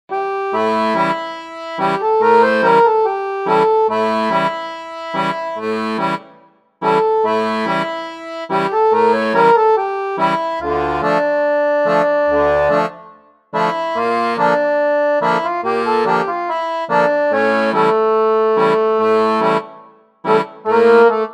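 Background music: an instrumental tune of rhythmic pitched notes with a steady beat, breaking off briefly about every seven seconds.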